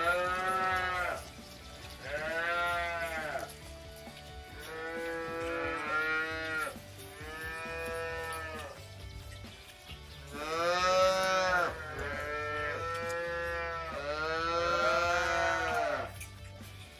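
Young dairy calves bawling over and over: about seven long calls of a second or two each, every one rising then falling in pitch.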